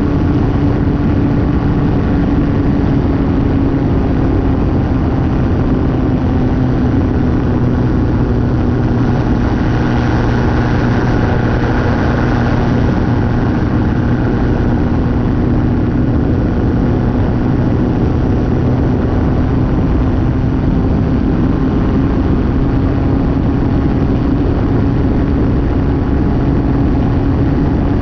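Light aircraft's engine and propeller running steadily in flight, a constant drone with rushing air noise.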